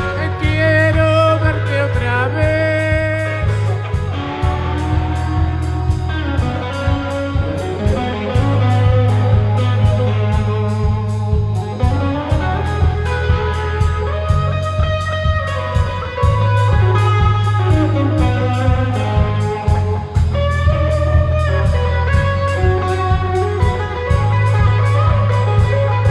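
Rock band playing live: electric guitar and bass over a drum kit keeping a steady beat, with melodic guitar or vocal lines on top.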